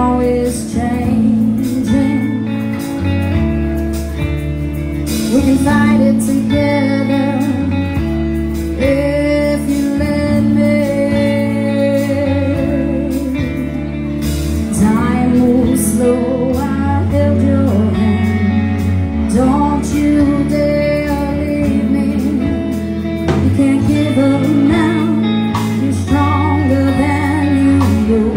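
Live band playing: a woman singing lead over electric guitar, electric bass and a drum kit.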